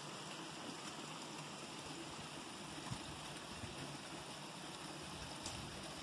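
Steady, even rush of flowing water.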